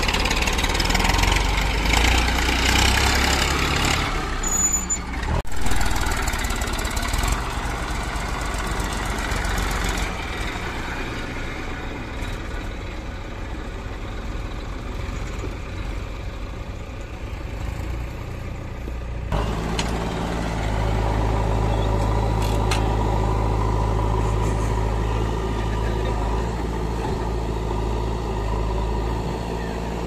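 Diesel engines running: a Massey Ferguson tractor and a JCB 3DX backhoe loader working together. The engine sound changes abruptly several times, and a steadier, deeper engine hum sets in about twenty seconds in.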